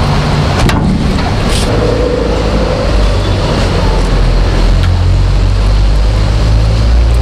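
Motor vehicle engine rumbling in street traffic, its low rumble growing louder about three seconds in.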